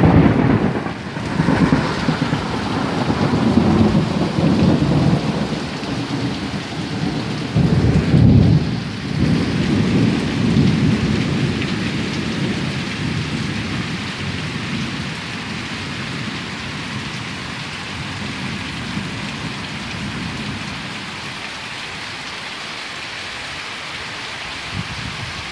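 Thunder rumbling over heavy, steady rain. A loud thunderclap comes at the start and rolls on, swells again about eight seconds in, and dies away after about twelve seconds, leaving the rain.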